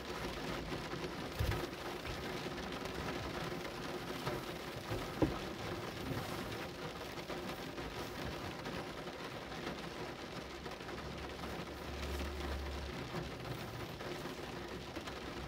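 Steady rain falling and pattering on a surface, with a couple of sharp knocks, the loudest about five seconds in.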